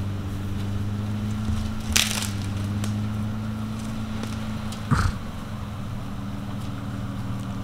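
Off-road 4x4's engine running steadily at low revs, with a sharp crack about two seconds in and a heavier knock about five seconds in.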